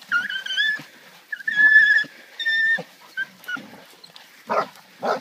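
Hog dogs catching a feral hog: a string of high-pitched whining cries, about half a second each, then two short, harsher cries near the end.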